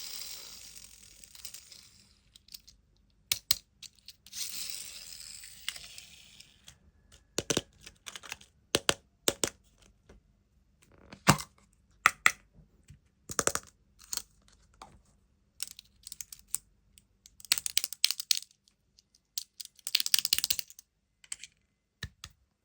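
Small plastic toys and wrappers handled up close: a string of sharp plastic clicks and taps, with several bursts of crinkling wrapper.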